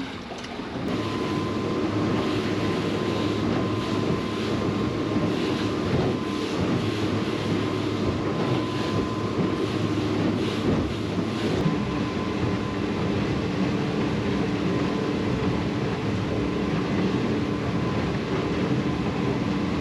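Boat motor running steadily underway, holding one even pitch, with wind and water noise around it.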